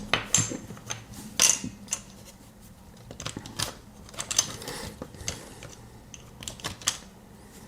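Plastic parts of a TV remote control's casing being handled and pressed together during reassembly: scattered sharp clicks and taps, the loudest near the start and about a second and a half in.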